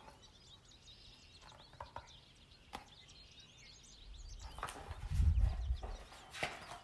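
Faint birds chirping in the background, with a few soft clicks and rustles from a hardcover picture book being held up and its pages handled. A low rumble, the loudest sound, comes about five seconds in.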